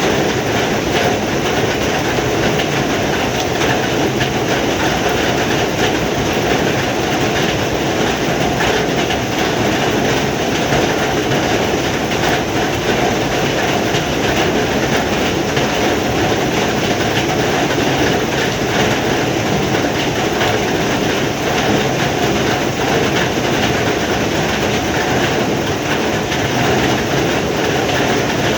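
Heavy rain falling steadily, a dense, even hiss with no pauses.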